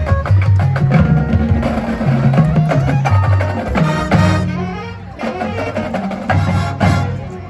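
High school marching band playing its field show: winds with drums and front-ensemble percussion. The music softens about five seconds in, then comes back in with drum hits.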